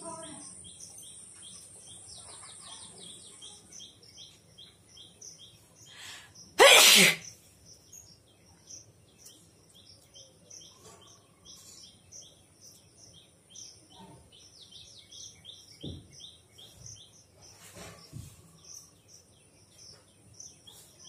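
A person sneezes once, loudly and sharply, about six and a half seconds in. Repeated high chirping of birds or insects goes on steadily in the background.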